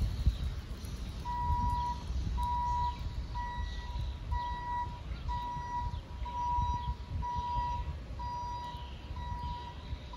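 An electronic alarm beeper sounds a steady beep on one pitch, repeating about once a second, starting about a second in. A low rumble runs underneath.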